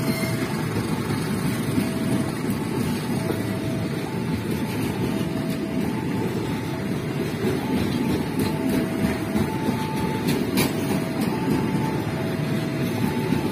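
An Indonesian KAI passenger train's executive coaches roll past with a steady rumble of wheels on rail and a few sharp clicks near the end. Over it the level crossing's warning alarm alternates steadily between a lower and a higher tone.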